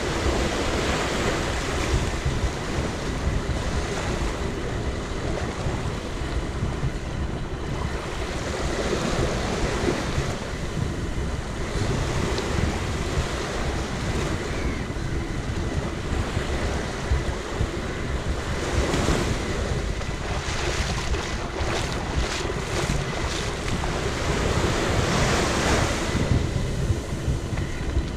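Ocean waves washing up on a sandy beach, swelling and falling back several times, with wind rumbling on the microphone.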